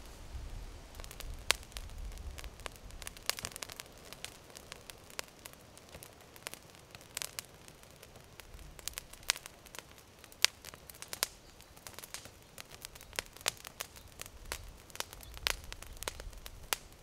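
Fire crackling with sharp, irregular pops inside a raised tripod smoke generator, burning green vegetation to make signal smoke.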